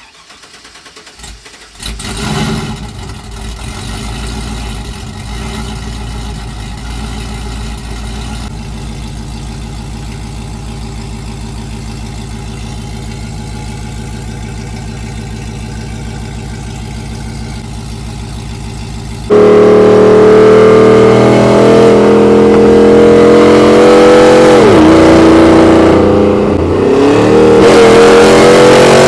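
Cammed LS V8 of a Chevrolet Silverado single cab firing up about two seconds in with a brief rev, then idling with a steady regular pulse. About two-thirds of the way through it jumps to a much louder steady drone at highway speed heard from inside the cab, the pitch dipping and climbing back twice near the end.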